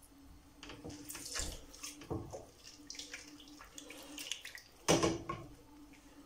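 Water poured from a small metal cup into an aluminium pot of mackerel pieces, splashing in several uneven pours, the loudest about five seconds in.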